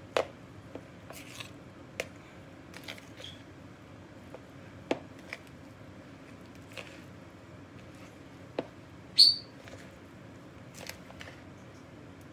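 Hands kneading ground ham with seasonings in a plastic bowl: soft squishing with scattered light clicks and taps, and one short high squeak about nine seconds in.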